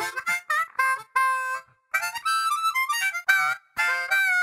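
Intro music: a solo instrumental melody in short, separate phrases, with several notes sounding together in places.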